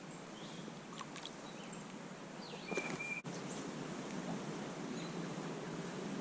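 Steady rush of a shallow trout stream's running water. About three seconds in, a bird gives one whistled note that slides down and then holds level.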